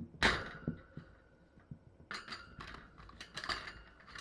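Kittens playing with toys: a sudden knock, then a run of light clicks, rattles and scuffles.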